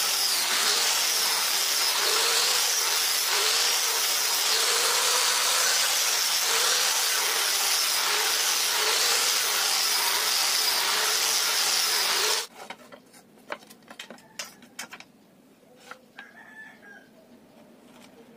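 Electric angle grinder with a sanding disc running and sanding a wooden strip, its pitch wavering as it bears on the wood. The sound cuts off suddenly about twelve seconds in, leaving a few light taps and clicks.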